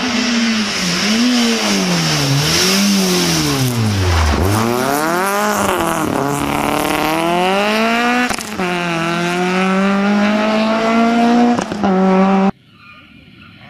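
Peugeot 306 rally car's four-cylinder engine at full competition pace: the revs drop and flare several times as it brakes and downshifts into a tight corner, then climb hard as it accelerates away, with an upshift partway through. The sound cuts off suddenly near the end.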